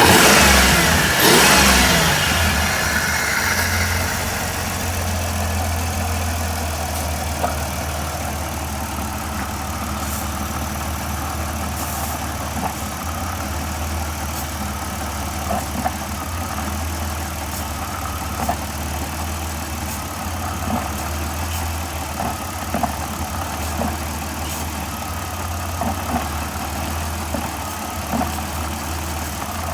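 1994 Chrysler Town & Country van's V6 engine idling steadily, after a loud rush of noise that fades over the first two seconds. The engine is running while Powerfoam intake cleaner works through it.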